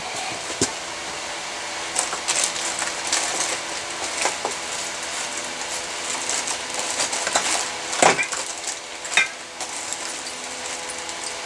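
Rummaging by hand among small hard objects: scattered clicks, clinks and knocks with rustling, over a faint steady hum. Two sharper knocks come about eight and nine seconds in.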